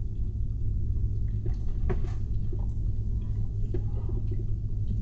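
Chewing a sandwich with the mouth closed, with a few faint wet clicks and smacks, over a steady low rumble inside a car.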